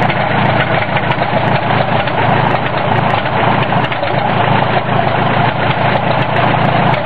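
1951 Farmall M's four-cylinder gasoline engine idling steadily with its exhaust pipe removed, while the tractor creeps forward in first gear.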